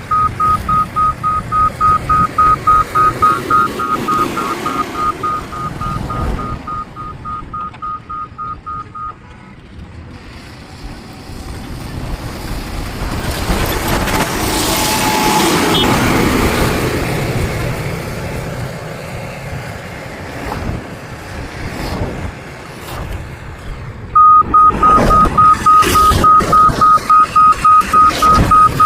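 Reversing alarm of a heavy road-construction machine, steady repeated beeps over the rumble of machinery engines. The beeping stops about nine seconds in, the machine noise swells and fades through the middle, and the beeping starts again, louder, near the end.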